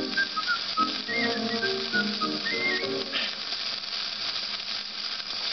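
Vinyl record on a turntable playing the closing bars of a piano song with whistling over it. The music stops about three seconds in, leaving the steady hiss of the record's surface.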